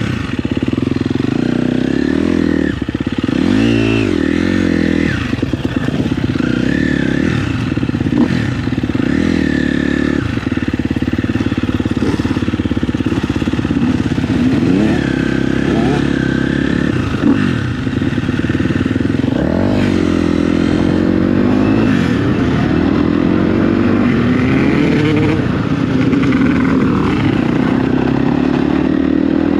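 Dirt bike engine being ridden hard on a trail, its revs rising and falling over and over as the throttle is worked.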